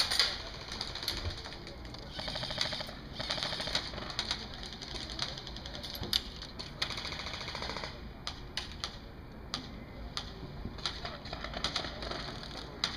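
Airsoft electric guns (AEGs) firing full-auto bursts, several runs of rapid clicking, with scattered single sharp snaps in the second half.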